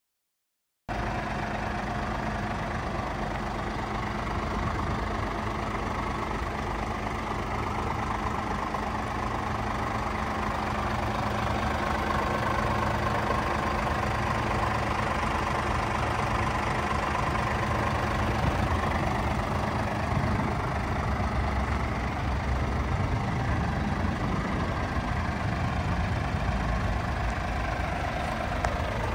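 Scania R450's 13-litre straight-six diesel engine idling steadily, starting about a second in.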